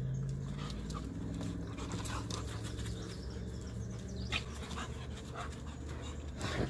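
A husky and an Alaskan malamute panting as they play-wrestle, over a low steady hum that fades after about four seconds.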